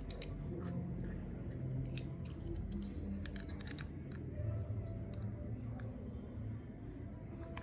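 Soft background music with scattered small clicks and snips of hand tools or parts being handled during a repair.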